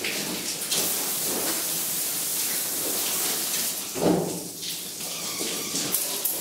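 Liquid running and splashing steadily, as from a tap or draining into a steel vat, with a brief knock about four seconds in.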